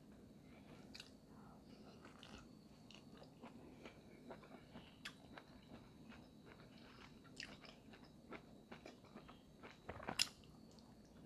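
Faint close-up chewing of sausage: soft, irregular mouth clicks and smacks, with a sharper click about ten seconds in.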